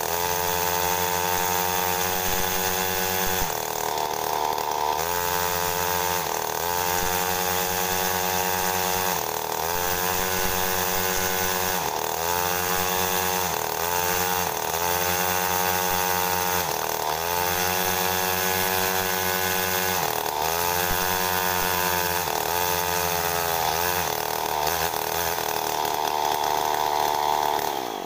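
Small two-stroke mini GP (pocket bike) engine running on a test stand, its throttle blipped over and over so the revs rise and fall every second or two, then held high near the end.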